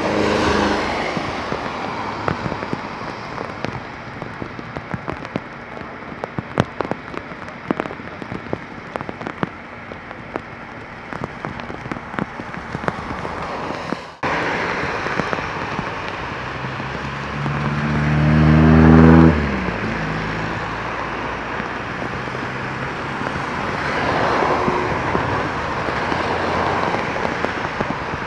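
Heavy rain hissing steadily, with raindrops ticking on the microphone through the first half. Later an engine tone rises in pitch, grows loud, then cuts off suddenly.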